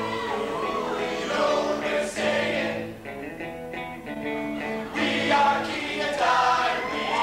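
A men's choir singing held chords in harmony, dropping quieter for a moment near the middle before swelling again.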